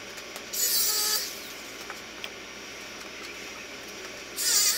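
CB radio speaker giving two short bursts of hissing static, about half a second in and again near the end, with a quieter steady background between.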